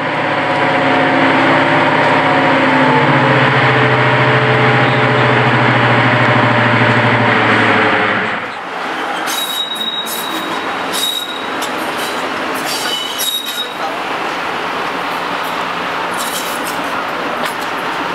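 For the first eight seconds or so, a steady droning intro sound with several held tones. Then, after a cut, a Class 55 Deltic locomotive's Napier Deltic engine running, on one of its two engines, as the locomotive moves slowly off, with a thin high squeal on and off for a few seconds.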